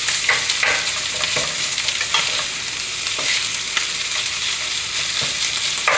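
Pork and vegetables sizzling in a hot oiled frying pan while being stir-fried, with a utensil knocking and scraping against the pan at irregular moments as the food is tossed.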